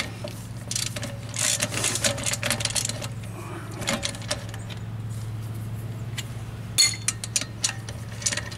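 Socket ratchet clicking in short runs as the lug nuts holding a wheel spacer to the hub are run down, with the socket rubbing against the spacer in its tight recess. There is a sharp click about seven seconds in and a steady low hum underneath.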